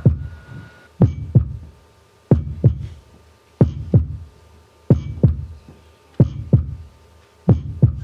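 Slow heartbeat: pairs of low thumps, lub-dub, repeating about every 1.3 seconds.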